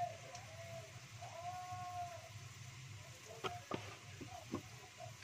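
Animal calls: a few short tones that rise and then fall, the longest lasting about a second. Several sharp clicks come about three and a half seconds in, and another a second later.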